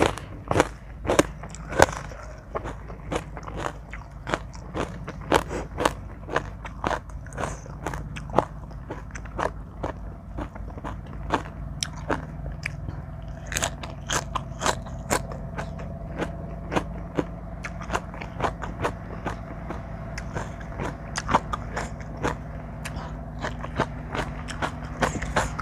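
A person eating spicy seafood papaya salad close to the microphone, chewing and biting with many irregular, crisp crunching clicks, several a second, over a faint steady hum.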